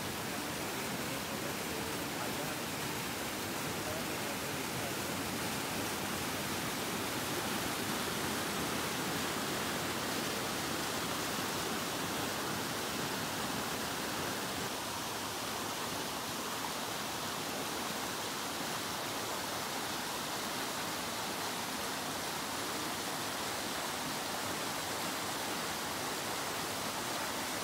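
Stream water rushing and splashing over boulders in small rocky cascades, a steady, unbroken rush.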